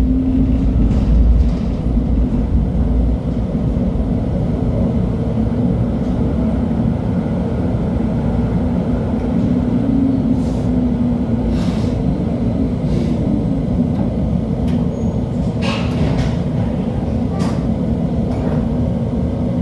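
LHB TW2000 light-rail car running: a steady low rumble with a constant hum, and several short sharp clicks or knocks in the second half.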